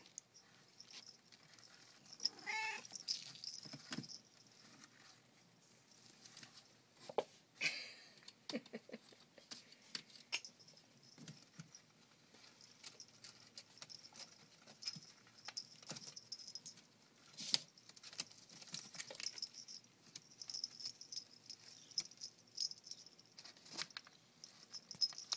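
Siamese kittens play-fighting in a wicker basket: one short meow about two and a half seconds in, then scattered scratching, rustling and light knocks of paws and claws on the wicker and wood.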